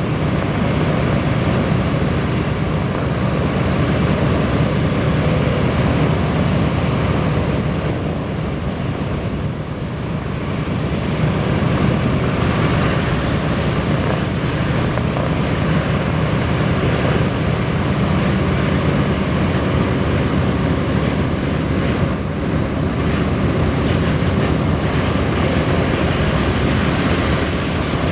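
B-17 Flying Fortress's Wright R-1820 Cyclone nine-cylinder radial engines running steadily on the ground, with a brief dip in level about ten seconds in.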